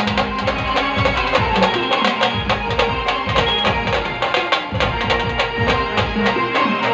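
Loud folk-style song with a fast, even drum beat and sustained melody.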